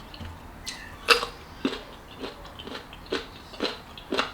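Close-up chewing of a chamoy pickle: short wet crunching strokes, about two a second.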